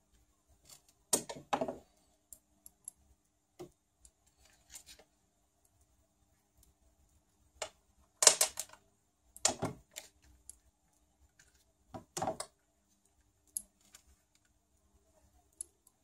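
Small metal and plastic parts clicking and clattering as an aluminium RC steering hub and its screws are handled and fitted with a screwdriver. The clatter comes in four short bursts, the loudest just past halfway, with faint single ticks in between.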